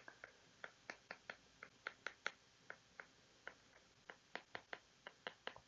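Stylus tapping and clicking on an iPad's glass screen during handwriting: a quick, irregular run of light ticks, several a second.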